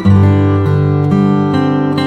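Background music: held notes that change every half second or so.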